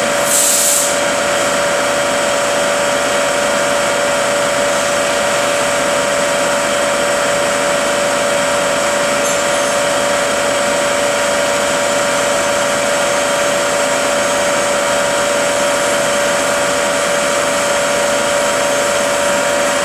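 Rebuilt Fuller FSO-8406A truck transmission running on a test dyno: a steady whine at one constant pitch over even machine noise, with a brief hiss about half a second in.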